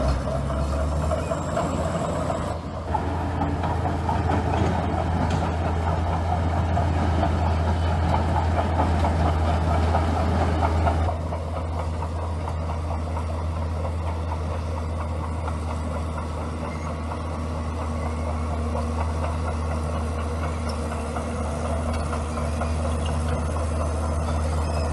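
Bulldozer's diesel engine running steadily, pulling harder and louder from about a second in, then easing off about eleven seconds in.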